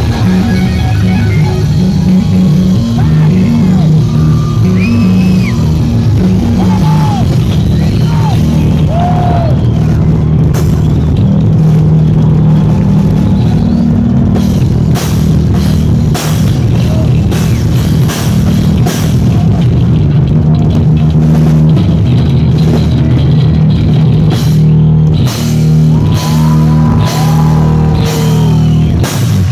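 Heavy metal band playing live on an amplified stage: electric guitars, bass and drum kit, loud and dense. Near the end come a run of hard, accented drum and cymbal hits.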